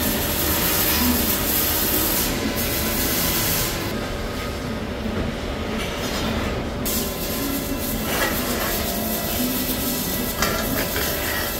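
Steady rushing mechanical noise with a low rumble, and a few light metal knocks as flanged steel pipe is handled, about eight and ten seconds in.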